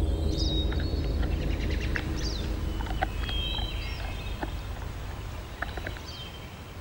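Wild animal calls: high thin whistles and short rising chirps over a low steady rumble that fades away, with scattered soft clicks.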